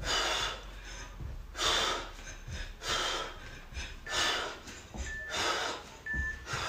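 A woman breathing hard from exertion: sharp, noisy exhales about once a second, in rhythm with a fast exercise.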